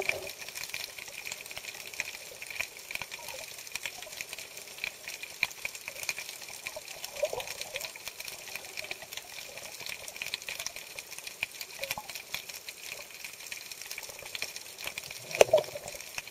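Underwater ambience picked up by a camera in its waterproof housing: a steady crackle of many faint clicks over a hiss, with a few muffled bumps, the loudest near the end.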